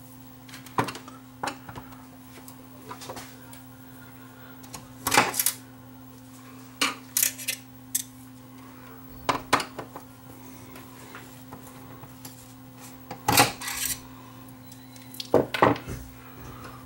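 Irregular clicks and knocks of a screwdriver, screws and metal and plastic parts being handled while a cassette deck's tape mechanism is unscrewed from its chassis, over a steady low hum.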